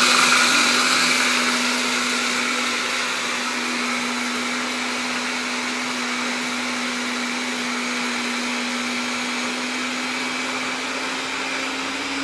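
Electric hand blender with its chopper bowl grinding walnuts, sunflower seeds and shredded coconut toward a paste, its motor running at a steady speed with a constant hum. A little louder for the first second or two, then even.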